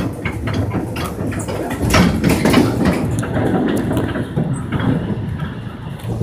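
Korail Line 1 resistance-controlled electric train running on the rails: a low rumble with a string of irregular clacks from the wheels and car body, heaviest about two seconds in.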